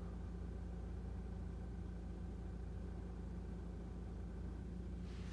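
Steady low hum in a car cabin, with a short hiss just before the end.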